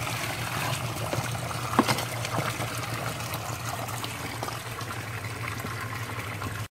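Water trickling and pouring back into a sump basin as an old sump pump and its cut discharge pipe are lifted out, with a few knocks about two seconds in. The sound cuts off suddenly at the end.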